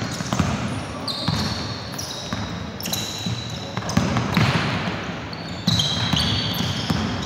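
Basketball shoes squeaking again and again on a hardwood gym floor as players run and cut, with a ball being dribbled, in a large echoing sports hall.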